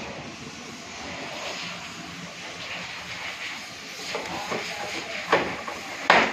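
Plastic clips and cover of a split AC indoor unit being worked loose by hand: a series of sharp plastic clicks and knocks, the loudest near the end, over a steady hiss.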